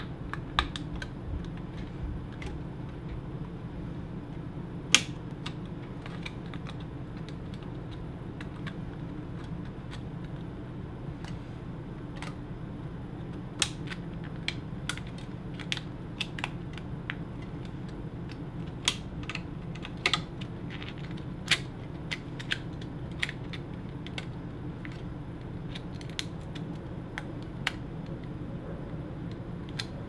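Sharp plastic clicks at irregular intervals as the flex-cable connectors on a plasma TV's upper buffer board are pressed and snapped into place by hand, the loudest about five seconds in and more of them later on. A steady low hum sits underneath.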